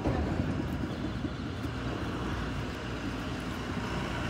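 Quad roller skate wheels rumbling steadily as several skaters roll over interlocking paver bricks.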